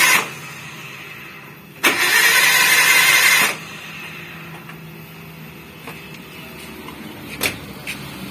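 Kia Visto's starter motor cranking the engine in two bursts, one ending right at the start and a second of about a second and a half, without the engine catching. The engine spins over with no compression and a whining sound, which the mechanic predicts means a broken timing belt. A low steady hum and a few sharp clicks follow.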